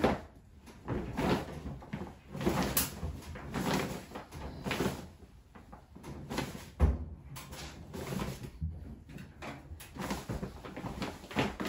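Laundry being handled and loaded into a front-loading clothes dryer: fabric rustling and irregular soft knocks, with one heavy thump about seven seconds in.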